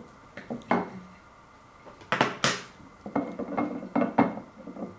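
Table knife clicking and scraping against a plate while cutting open a pie: a few separate clinks, the loudest pair about two seconds in, then a quicker run of lighter taps.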